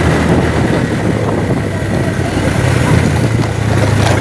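A vehicle engine running steadily at a constant low pitch, with road and wind noise over it.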